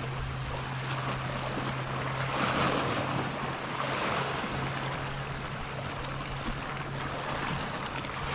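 Surf washing on the shore in slow swells, with wind noise on the microphone and a steady low hum underneath.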